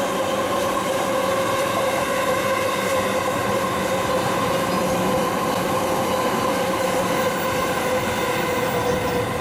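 Electric commuter train pulling into a station and slowing to a stop, with a steady whine as it brakes that drops slightly in pitch near the end, over the rumble of its wheels.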